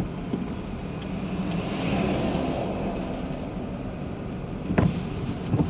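Road and engine noise inside a moving car's cabin, a steady low rumble with a broad swell of hiss about two seconds in and two short knocks near the end.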